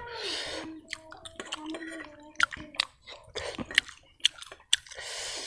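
Close-up chewing of rice and curry: a run of wet mouth clicks and smacks, with short hissy stretches near the start and near the end.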